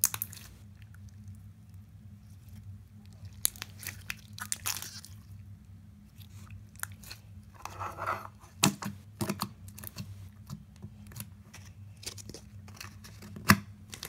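Clear glitter-flake slime squished and worked by hand, giving scattered irregular wet clicks and crackles over a steady low hum. Near the end comes one sharp snap, the loudest sound.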